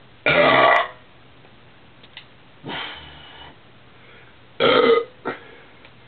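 A man burping after drinking beer: a loud half-second burp just after the start, a quieter one in the middle, then another loud burp near the end.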